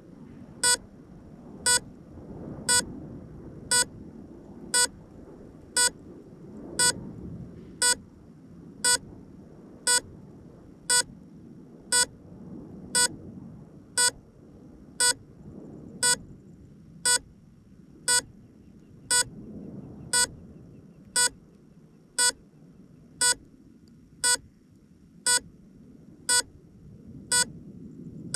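An electronic beeper sounding a short, high beep about once a second, evenly spaced, over a low rumbling noise.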